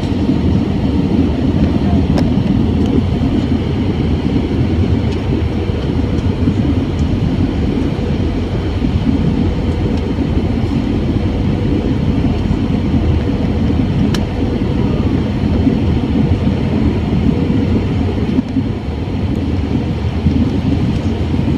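Steady low roar inside an Airbus A320's passenger cabin in flight: engine and airflow noise heard at a window seat over the wing, with a faint steady hum.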